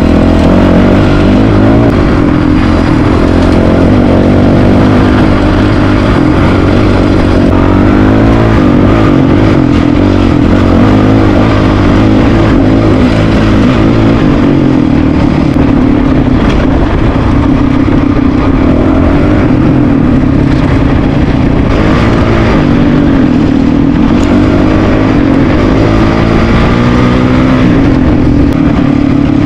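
Single-cylinder dual-sport motorcycle engine running loudly under way, its revs rising and falling with the throttle.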